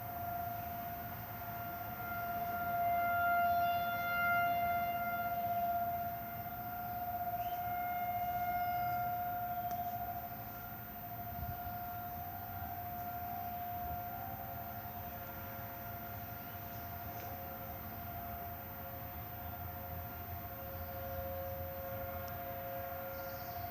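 Outdoor tornado warning sirens sounding a steady alert tone during the monthly test, rising and falling in loudness. A second, lower siren tone grows stronger near the end.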